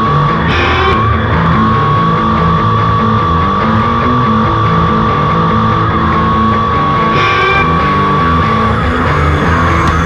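Loud rock music led by guitar.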